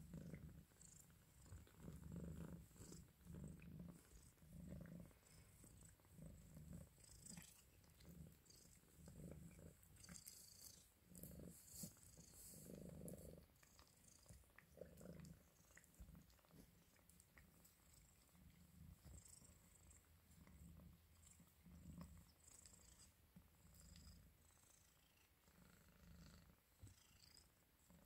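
Ragdoll mother cat purring softly as she nurses her two-week-old kittens, a faint low purr that swells and fades in pulses a little under a second apart.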